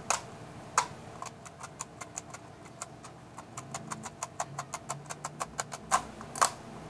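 The small plastic switching segments around the dial of a Legrand QT31 analog timer being pried over one after another with a screwdriver tip, each one a 15-minute step of the on-period being set: a quick run of small clicks, several a second, with a few louder clicks near the start and near the end.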